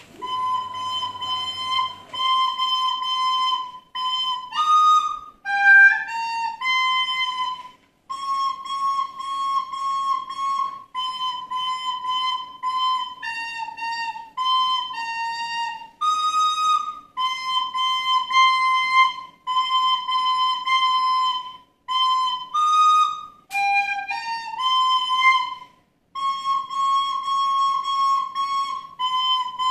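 A child playing a simple melody on a soprano recorder, one note at a time in short phrases with brief breaks for breath. The notes stay mostly close to one pitch, with a few steps up and down.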